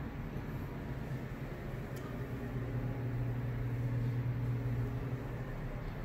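A steady low hum over a faint hiss, swelling a little in the middle.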